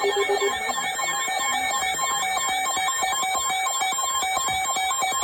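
Emergency alert tones: several electronic alarm tones beeping and pulsing at once. A low pulsing tone drops out about half a second in, and the rest carry on steadily.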